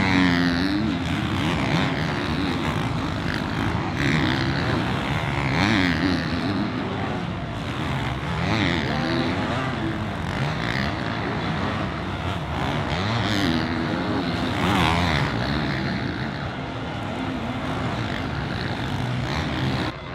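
Several motocross bikes racing on the track, their engines revving up and down in overlapping waves as riders accelerate, shift and pass.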